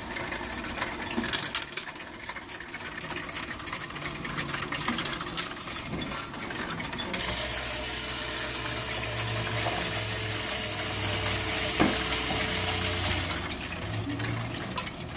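Bank coin-counting machine at work: coins clatter and rattle as they are fed through it. From about halfway through, a steady motor hum with a continuous rushing sound runs under the clatter.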